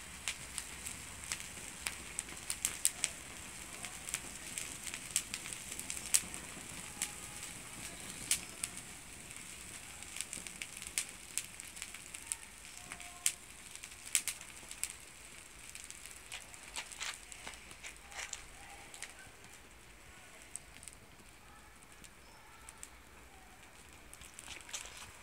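Dry fir twigs burning with sharp crackles and pops, thick in the first half and thinning out later as the fire dies down. Faint bird calls behind.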